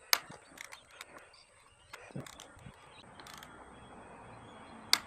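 Click-type torque wrench set to 18 ft-lb tightening the handlebar clamp bolts: a sharp click just after the start and another near the end as the bolts reach torque, with small metallic taps in between.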